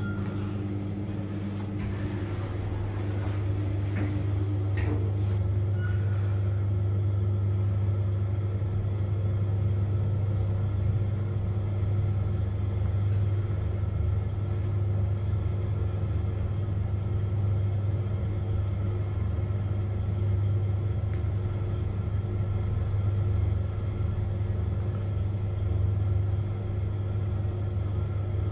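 Fujitec high-speed elevator car in motion, heard from inside the car: a steady low rumble of ride noise.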